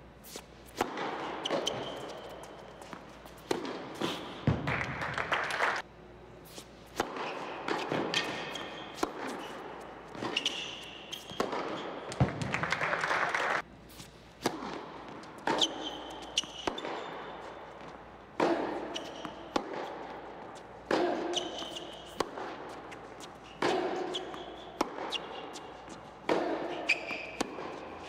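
Tennis play on an indoor hard court: sharp pops of racquets striking the ball and the ball bouncing on the court, repeating every second or so through the rallies, with quieter stretches between points.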